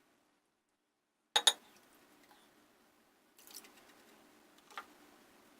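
Silence, then about a second and a half in two sharp clicks close together, like small hard objects being handled or set down, followed by faint room tone with a couple of softer clicks.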